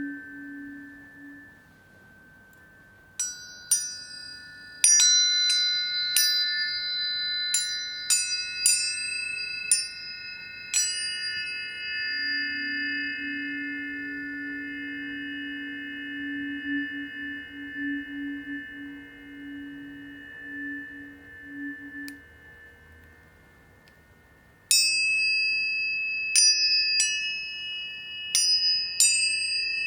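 Planetary tuning forks struck repeatedly: a quick run of about eight bright metallic pings, then their pure tones ringing on steadily with a lower tone swelling and fading underneath. A second cluster of strikes comes near the end.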